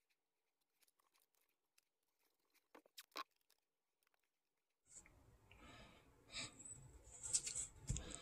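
Near silence at first, then from about five seconds in faint handling sounds of blue painter's tape and a round wooden panel being worked, with a low thump near the end.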